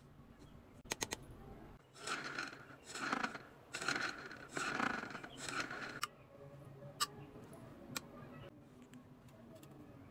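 Thin clear plastic from a cut drink bottle being handled, giving a series of rustling surges, with a quick cluster of sharp clicks about a second in and a couple of single clicks later.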